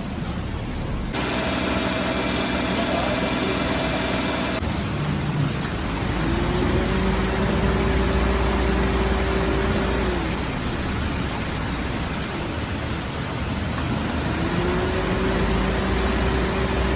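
Daihatsu Esse running with its air conditioner on, giving the "jiri-jiri" buzzing that the owner treats as an abnormal noise from the cooler. A many-toned buzz lasts for a few seconds near the start. Then a hum rises, holds for about four seconds and drops, and rises again near the end.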